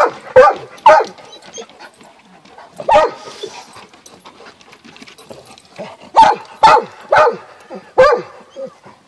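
Dogs barking at play: about eight short, sharp barks in bunches, three in quick succession at the start, a single one about three seconds in, then four more close together near the end.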